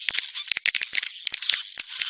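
Swiftlets twittering: a dense, unbroken run of rapid high chirps and clicks, a mating and breeding call of the kind played to draw swiftlets into a nesting house.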